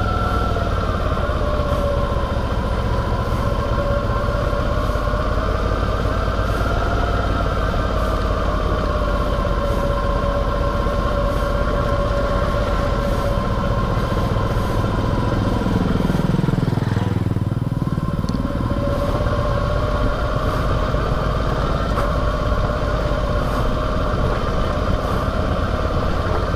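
Suzuki V-Strom motorcycle engine running steadily on the overrun, engine braking in first gear down a dirt-road descent, heard from the rider's seat. Around two-thirds of the way through, its pitch briefly dips and comes back up.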